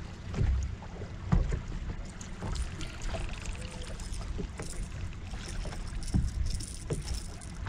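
Lake water lapping and slapping against a boat hull, with a few sharp knocks on the boat. The two loudest knocks come about half a second and one and a half seconds in.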